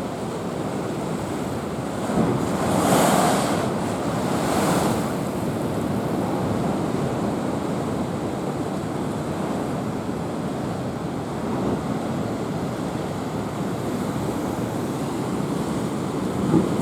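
Typhoon swell surging and breaking against a harbour breakwater, with wind buffeting the microphone. Larger waves crash about two and a half seconds in and again near five seconds, with another sharp crash near the end.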